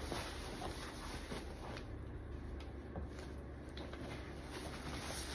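Faint rustling and handling of packaging during unboxing, with a few light taps and clicks.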